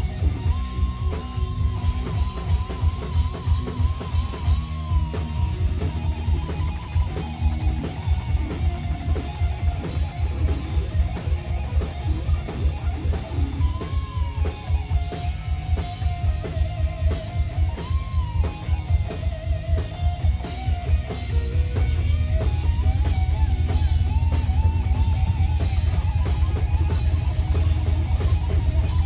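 Live rock band playing: an electric lead guitar holds and bends single notes with wide vibrato over drum kit and bass. The band gets louder about two-thirds of the way through.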